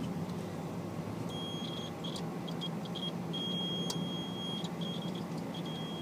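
Digital multimeter's continuity beeper sounding in broken beeps, some short and some held for about a second, as the probes touch the compressor terminals and the sanded copper. The tone signals continuity between the windings and ground: a grounded reciprocating compressor.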